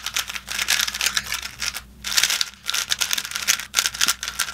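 First turns of a new, non-magnetic MoYu GTS3 3x3 speed cube: rapid plastic clicking and clacking of the layers turning, with a brief pause a little over one and a half seconds in.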